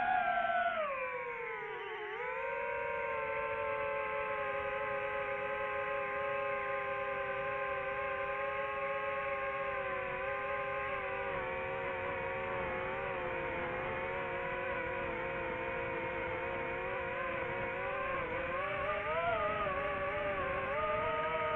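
Vehicle engine running: its pitch drops over the first couple of seconds as the revs fall, then holds at steady revs, wavering slightly near the end.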